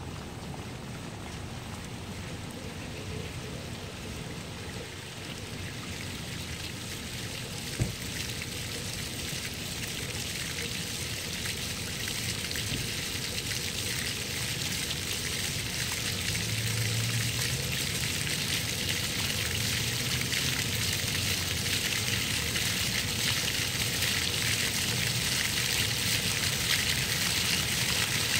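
Rows of ground-level spray fountain jets splashing onto wet paving stones: a steady hiss of falling water that grows gradually louder as the jets rise higher. A single sharp click about eight seconds in.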